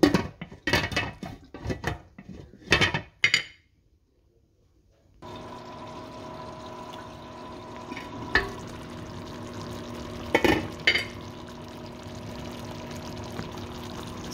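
Glass pan lid clinking and knocking against a frying pan as it is set back on, several clatters in the first three seconds. After a short silence, a steady hiss with a steady hum underneath as the chicken simmers in its sauce under the lid, with a couple of faint clicks.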